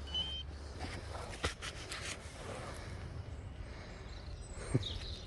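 Steady low wind rumble on the microphone, with a few soft clicks and rustles of handling in the dug soil.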